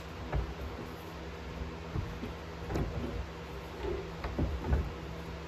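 A thin sheet-metal pipe section being rolled in a hand-cranked slip roll: irregular light clunks and scrapes of metal against the rollers, over a steady low hum.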